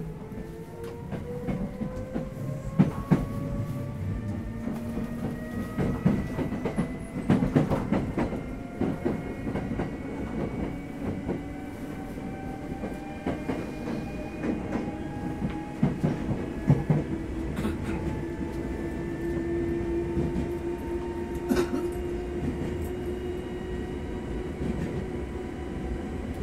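Hankyu 7000 series electric train car heard from above its bogie while accelerating: the traction motors and gears whine, several tones rising slowly in pitch as the train gathers speed. Wheels clack over rail joints throughout. This car is very loud compared with others of its class.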